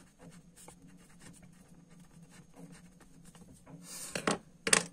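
Pen writing on paper: soft, scratchy strokes, followed about four seconds in by a brief rustle and, just before the end, a sharp knock.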